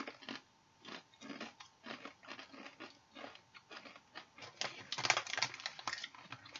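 Close-up crunching and chewing of hard, tortilla-like jalapeño corn chips, in irregular crackles with a louder run of crunching about five seconds in.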